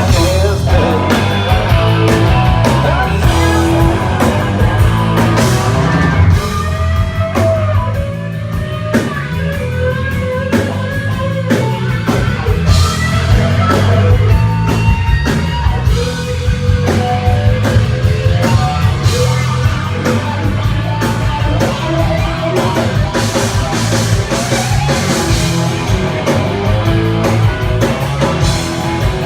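A rock band playing live at a sound check, loud and steady, with a drum kit keeping a steady beat under electric guitar.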